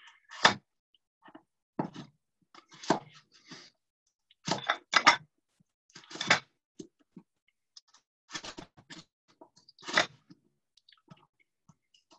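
Chef's knife cutting a raw carrot into thin strips on a cutting board: a dozen or so short crunchy chops at an uneven pace, some in quick pairs.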